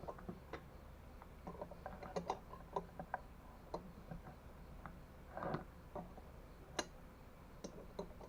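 Faint, irregular light metal clicks and taps of wrenches on two nuts jammed together, as a factory stud is unscrewed from a new bicycle engine kit. A short scrape comes about five and a half seconds in.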